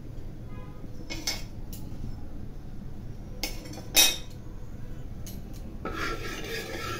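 A few sharp metallic clinks of kitchenware, the loudest about four seconds in, then a steel ladle scraping round a kadai from about six seconds in as it spreads the heating mustard oil.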